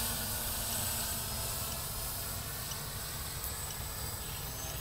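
Steady hiss over a low fluttering rumble, like wind on the microphone, with faint high insect chirps about once a second.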